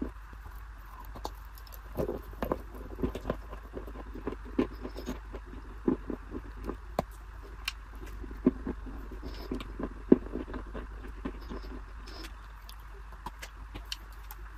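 Close-miked chewing of a dry, crumbly pressed block: irregular soft crunches and small wet mouth clicks, several a second, over a steady low hum.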